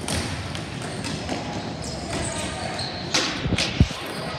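Ball hockey play: sticks and the plastic ball clacking and knocking on the court, with a quick cluster of sharp hits about three seconds in, the loudest a hard knock near the end.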